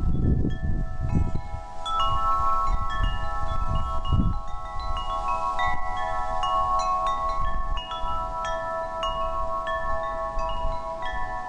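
Wind chimes ringing: many bright, overlapping notes struck at random that ring on and fade, with a low rumbling noise underneath for roughly the first four seconds.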